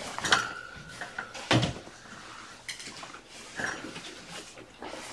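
Household knocks and clatter: several sharp clicks, a short steady squeak near the start, and one loud thump about a second and a half in.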